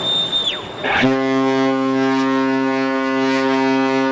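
A ship's horn sounds one long, steady, deep blast, starting about a second in. Just before it, a brief high-pitched tone rises and then falls away.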